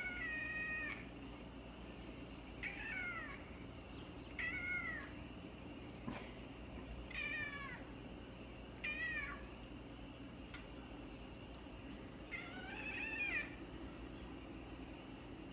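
Orange tabby cat meowing six times in short, insistent calls a second or two apart, asking to be let outside through the door.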